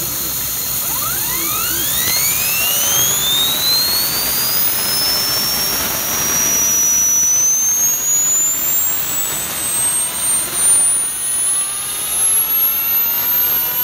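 Small model turbine spooling up, its whine climbing steadily in pitch from about a second in until it is very high near the end, over a steady hiss. It drives a small generator that lights an LED lamp.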